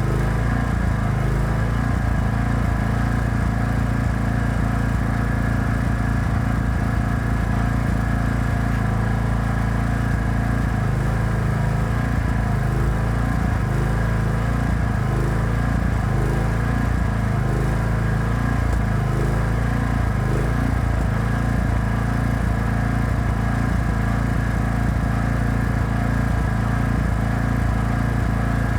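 Engine-driven welding generator running steadily, its note wavering about once a second for a stretch in the middle.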